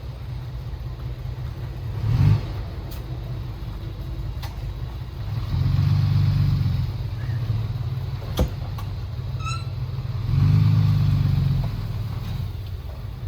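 Heavy diesel engine of earthmoving machinery running steadily, rising twice in load for about two seconds each time, with a brief bump early and a sharp metallic knock just after the middle.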